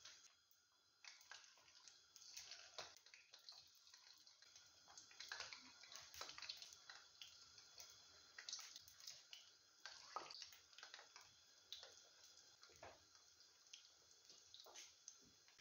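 Coated chicken wings deep-frying in hot oil, a faint steady sizzle with many small irregular crackles and pops.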